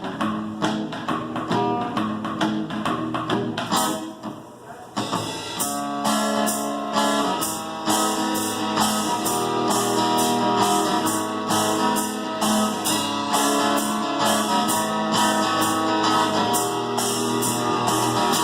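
Live acoustic duo playing: a strummed acoustic guitar in a steady rhythm with cajon and cymbal percussion. The playing thins out briefly about four seconds in, then comes back fuller.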